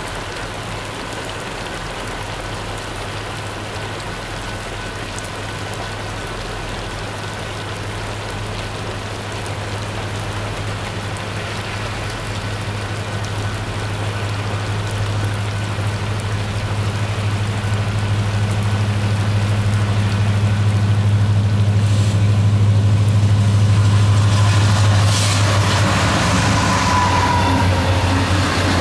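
CSX and CN diesel freight locomotives approaching in steady rain, their engine drone growing louder until they pass. Near the end, autorack cars roll by with clattering wheels.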